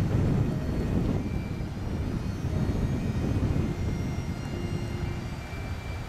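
Steady, loud rushing rumble of outdoor noise, heaviest in the low end and wavering in strength.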